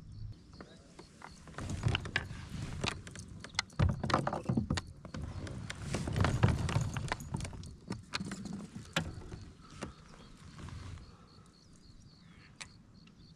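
Irregular knocks and clatter on a plastic fishing kayak as the angler moves about, sits down into the seat and handles rods and gear. The knocking is busiest in the first two-thirds and dies down near the end.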